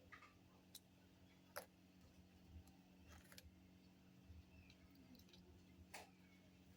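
Near silence with a few faint, scattered clicks from a fuse being swapped into a mains plug, over a low steady hum.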